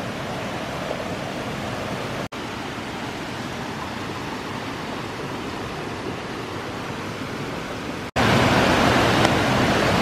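Steady rush of a woodland stream tumbling over small rocky cascades. It breaks off for an instant about two seconds in and again about eight seconds in, and is louder after the second break.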